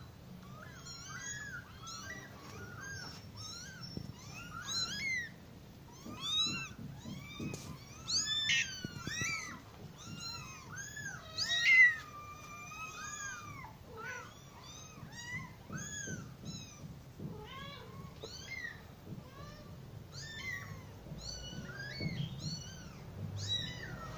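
Several young kittens meowing almost constantly, their high, thin mews often overlapping. There is a louder call about eight seconds in, and a loud call about twelve seconds in that trails off into a long, falling mew.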